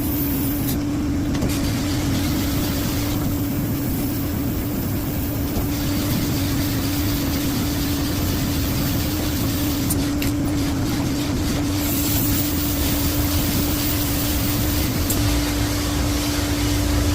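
A shop machine's motor running steadily, a constant hum over a broad rushing noise.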